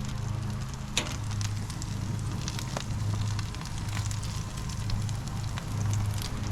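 Butter sizzling and crackling in a cast iron skillet on a barbecue, with buns laid in to soak it up; a steady low hum runs beneath, and a sharp click comes about a second in.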